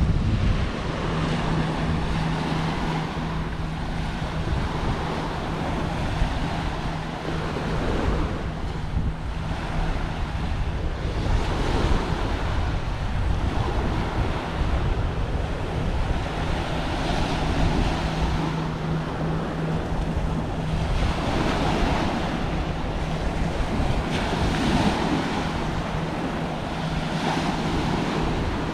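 Small surf breaking and washing up a sandy beach, swelling every few seconds, with wind rumbling on the microphone. A steady low hum runs underneath from about a second in.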